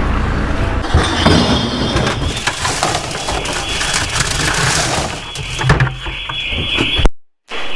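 Handling noise of a plastic wheelie bin being opened and loose plastic strapping tipped into it from a bucket: rustling and clatter, with a sharp knock near the end. A steady high hiss runs underneath from about three seconds in.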